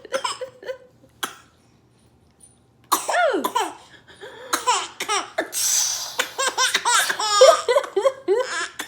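A baby laughing in repeated short bursts, starting again after a brief pause about three seconds in. Midway there is a short hissy burst that fits a woman's pretend sneeze.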